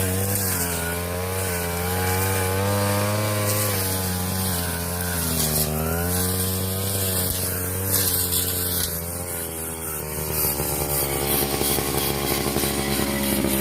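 Brush cutter engine running at speed, its pitch dipping and recovering as the blade meets the grass.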